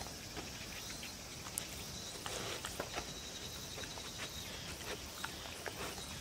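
A dog licking and nibbling food crumbs off a wooden cutting board: small, irregular clicks and smacks of tongue and teeth against the wood.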